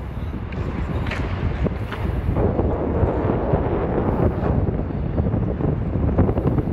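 Wind buffeting the camera's microphone: a continuous, uneven rumble.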